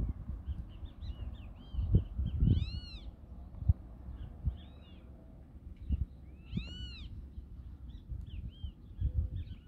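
Birds calling: many short chirps, with two louder, drawn-out calls that rise and fall in pitch, one about two and a half seconds in and one near seven seconds. Low thumps and rumble on the microphone underneath.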